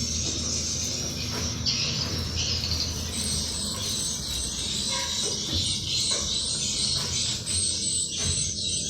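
Swiftlets twittering: a dense, continuous chatter of many high chirps, with a low hum underneath.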